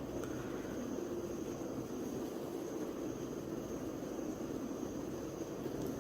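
Steady background hum with a faint, steady high-pitched whine, with no distinct events.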